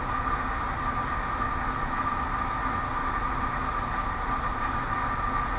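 Steady background hum and hiss with a constant high-pitched whine, unchanging throughout.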